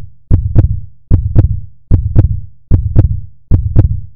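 Electronic heartbeat sound effect on the closing logo: loud double thumps repeating steadily about every 0.8 seconds, each with a deep boom and two sharp hits.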